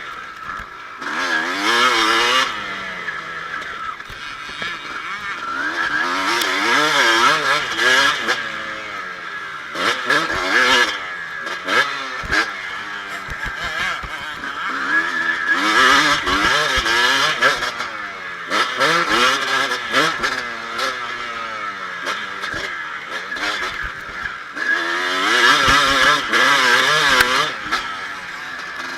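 2007 Kawasaki KX250 two-stroke motocross engine revving hard, its pitch climbing and dropping as the throttle opens and closes, in loud surges every few seconds. Heard from the rider's chest, so the engine is close and loud.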